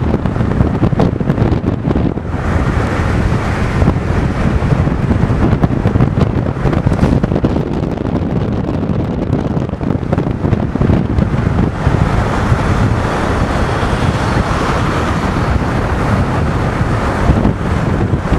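Wind buffeting the microphone inside a moving car, over the steady rumble of the car and its tyres on the road.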